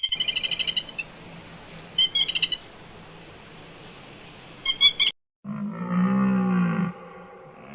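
A bird calling in three bursts of quick, high, trilled chirps, then after a cut one low moaning call of about a second and a half that bends slightly in pitch, like a whale's.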